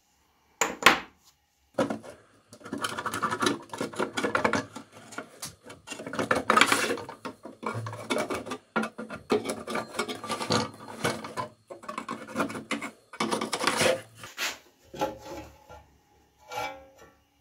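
A long flat screwdriver scraping and prying under the edge of an old Siemens crank telephone's case to separate it from the base. It comes in irregular bouts of scraping and rubbing, with sharp metal clicks and short pauses.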